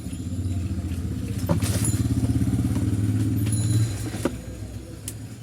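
Electric table fan's mains motor running with a steady hum and a fast flutter, growing louder and then dropping away about four seconds in. Clicks come just before the hum and as it drops.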